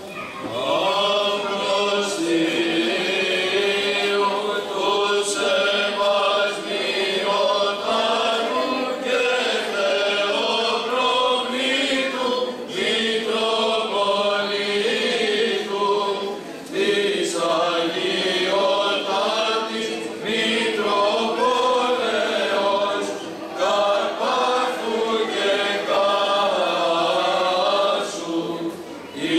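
A small group of men and women singing together in a slow, chant-like style, in long phrases with brief pauses for breath.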